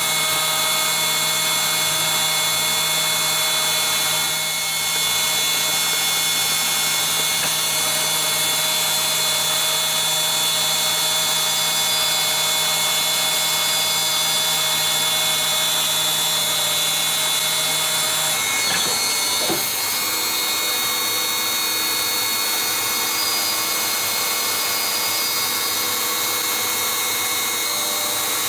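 A CNC lathe's live-tool spindle milling a metal part with coolant, a steady machining whine with several held tones and a high hiss. About two-thirds of the way through, the tones shift as the cut changes: some drop out and a new, lower tone takes over.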